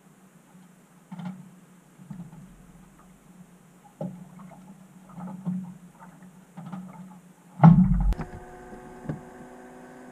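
Scattered small knocks and rustling as a person climbs into a light aircraft's cabin, with one heavy thump about three-quarters of the way through. After the thump a steady hum of several even tones sets in.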